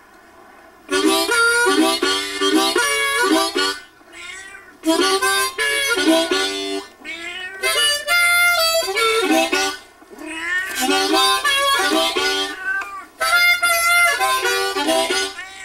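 A harmonica played in phrases of a few seconds each, with short pauses between, while a cat meows along in gliding, wavering cries in the gaps and over the notes.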